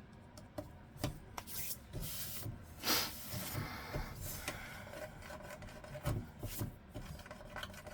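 Craft supplies being handled on a work desk: irregular rubbing and rustling with small clicks and knocks, the loudest a rasping rub about three seconds in.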